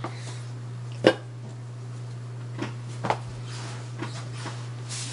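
A few short, sharp sounds from a person's throat or nose, the loudest about a second in, then fainter ones near the middle and toward the end, over a steady low hum.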